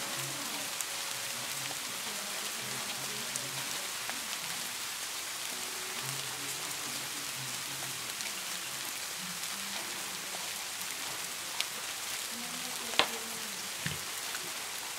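A steady high hiss throughout, with a few small clicks from pens and paper being handled, the sharpest about thirteen seconds in.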